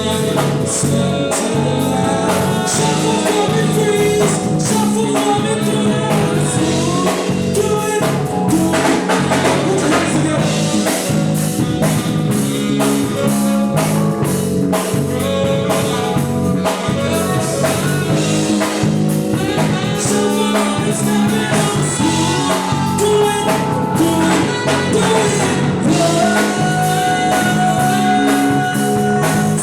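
Live band playing a song, with singing over a drum kit and backing instruments at a steady beat.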